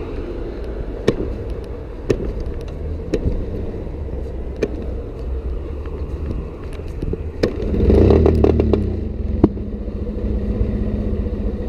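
Small motorcycle engine running under way, with irregular sharp clicks and pops. About eight seconds in it swells louder, then settles to a steady pitch. The bike is misfiring, which the rider puts down to a worn-out original battery.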